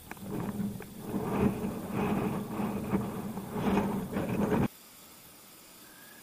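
Wind buffeting and road rumble on a bike-mounted camera's microphone while riding an e-bike, in uneven gusts. It cuts off abruptly about three-quarters of the way through, leaving a faint steady hiss.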